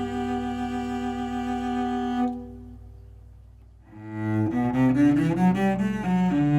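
Cello being bowed as a play test after its bridge was lowered for a lower string action. It holds sustained notes that stop about two seconds in and ring away. After a short gap a run of quick, changing notes begins.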